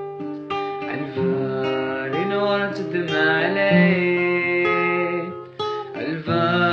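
Song intro on strummed and plucked acoustic guitar.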